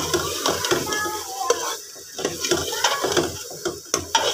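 A metal ladle stirring boiled black chickpeas frying in ghee in a pressure cooker pot, the bhuna stage of the curry. Irregular scrapes and knocks against the pot over a steady sizzle.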